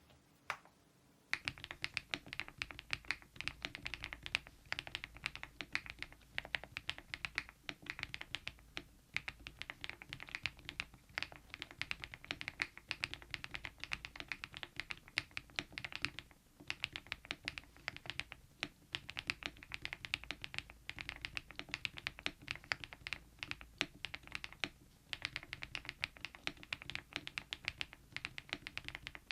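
Mechanical keyboard fitted with KeyTok Godzilla dye-sublimation keycaps being typed on quickly: a dense, continuous run of keystroke clacks that starts about a second in, broken by a couple of brief pauses.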